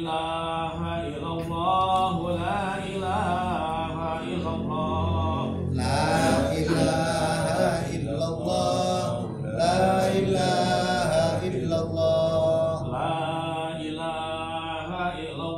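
Men's voices chanting an Arabic Islamic devotional recitation (dhikr) together, in a continuous, melodic, drawn-out chant.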